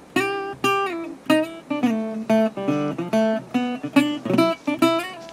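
Background music: an acoustic guitar playing a run of separate plucked notes, several a second.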